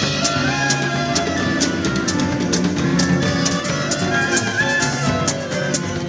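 Live band playing instrumental music: a drum kit keeps a steady beat, with the snare struck by hand, under bass and a held melody line.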